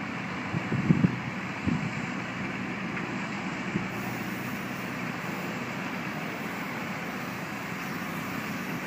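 Liebherr A 904 C Litronic wheeled excavator's diesel engine running steadily as the machine works, with a few low thumps in the first two seconds.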